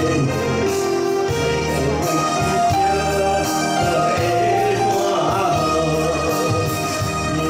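A man singing a Taiwanese Hokkien ballad through a microphone and PA over amplified nakashi-style instrumental accompaniment, with a steady bass line and long held sung notes.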